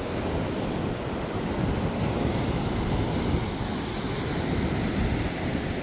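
Ocean surf washing steadily, with wind buffeting the microphone in low rumbles.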